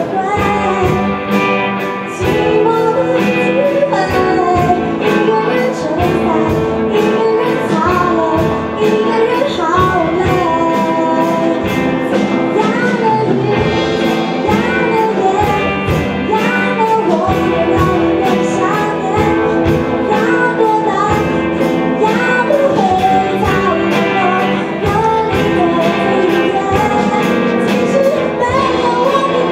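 Live band playing a song: a female vocalist singing over electric guitars and a drum kit, with regular drum hits keeping the beat.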